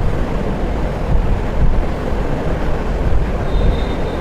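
Steady low rumbling background noise, like a fan or wind on the microphone, with a faint thin high whistle starting near the end.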